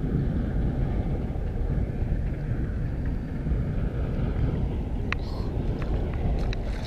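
Wind buffeting an action-camera microphone, a steady low rumble, with a few light clicks about five seconds in.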